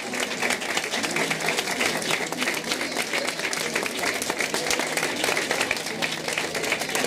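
A crowd of people applauding, a dense steady run of hand claps.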